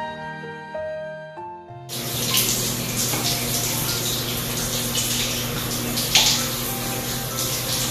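Soft melodic music for about the first two seconds, which cuts off. Then water runs steadily from a shower onto a pebble-tiled floor, splashing, with a louder splash about six seconds in.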